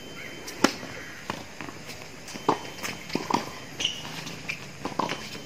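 Tennis serve: the ball struck hard by the racket about half a second in, the loudest sound here, followed by a rally of further racket hits and ball bounces on a hard court, with players' footsteps.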